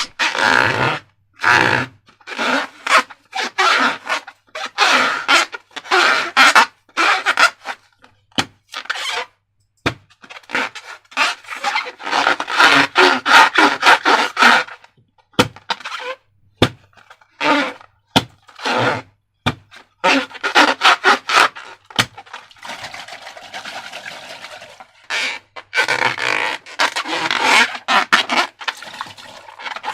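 Slime being squeezed and mixed: irregular bursts of sticky squelching and scraping with brief pauses, and sharp little clicks and pops in between.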